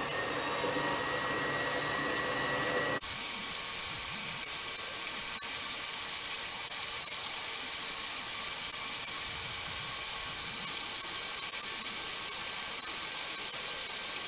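Electric tilt-head stand mixer running at high speed, its whisk beating condensed-milk buttercream that has reached the curdling stage; a steady motor whir with a thin whine.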